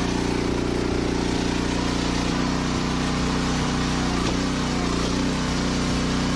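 Engine of a hydraulic log splitter running steadily, with a slight change in pitch about two seconds in.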